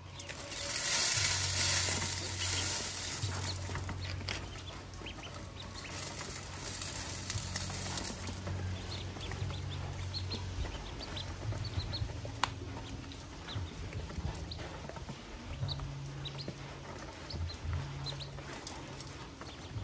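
A brood of ducklings feeding from a metal basin: scattered short high peeps along with ticks of bills pecking at grain on the metal. A hiss is loudest in the first few seconds, and a low hum comes and goes.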